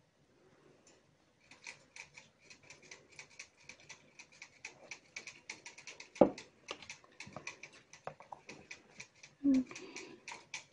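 Metal tongs working inside a small plastic deli-cup enclosure, picking at tissue: a fast, irregular run of light clicks and scratches starting about a second and a half in, with one sharper knock about six seconds in.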